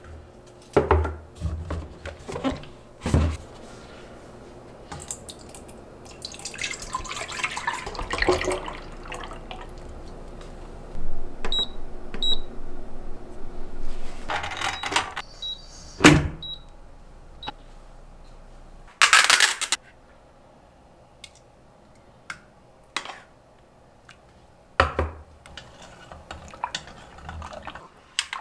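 Kitchen work: knocks and clatter of dishes and utensils, a few seconds of water running from a tap, and several short high electronic beeps from an appliance, with sharp rustling bursts in between.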